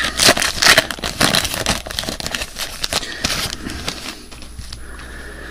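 Wrapper of a 1991 Impel Mega Metal trading card pack crinkling and tearing as it is opened: a quick run of crackles that dies down about four seconds in.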